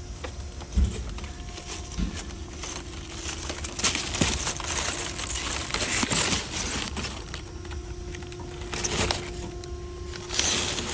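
Plastic shrink-wrapped cases of bottled water being handled and loaded into a wire shopping cart. The plastic wrap crinkles in bursts, with two dull thumps in the first two seconds.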